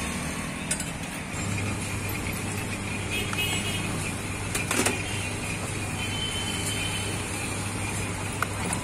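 Steady roadside traffic noise with a low hum setting in after about a second and a half, and a few sharp clicks, the loudest about halfway through.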